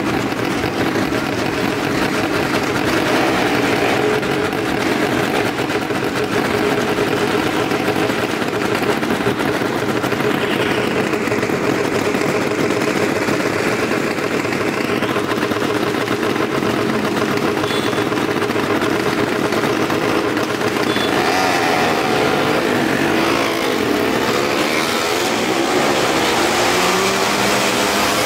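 Small car and motorcycle engines running loudly inside a wooden well-of-death drum. They drone steadily at first, and from about two-thirds of the way in they rev up and down as the motorcycles ride the wall.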